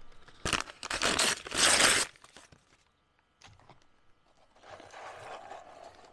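Paper takeaway bag rustling and crumpling as it is handled. It is loudest in the first two seconds, then quieter.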